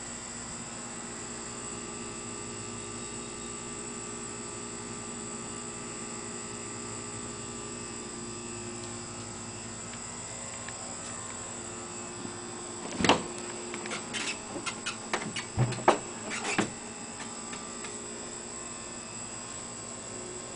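Steady background hum, then a run of sharp clicks and knocks in the middle, lasting about four seconds, as the Shelby Cobra replica's bonnet is unlatched and lifted. The engine is not running.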